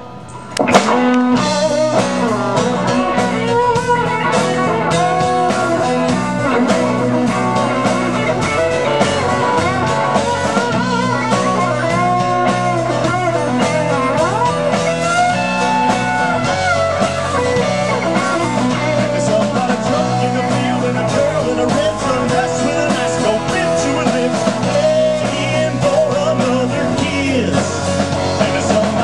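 Rock band playing an instrumental passage: a bending electric guitar lead over bass and drums, with a sharp drum hit about a second in after a brief drop.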